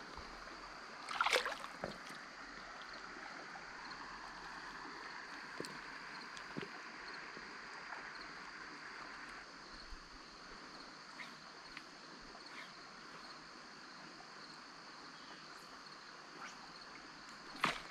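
Shallow creek water flowing, a faint steady wash, with a brief louder noise about a second in and a few light ticks and water sounds as a trout is released by hand.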